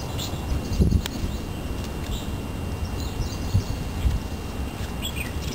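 Outdoor ambience: scattered short bird chirps over a steady low rumble, with a few dull bumps about a second in and near the four-second mark.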